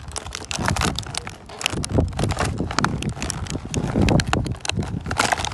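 Rustling, crinkling and clicking of plastic toy packaging handled right by a phone's microphone, with low bumps and knocks from the phone being moved about.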